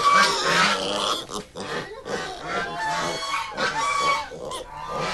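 A pen of young pigs squealing, many shrill calls overlapping, loudest in about the first second.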